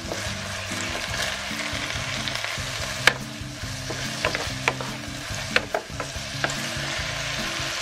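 Pressed tofu strips and green garlic stalks sizzling steadily in oil and water in a nonstick frying pan, stirred with a wooden spatula that knocks and scrapes against the pan now and then, the sharpest knock about three seconds in.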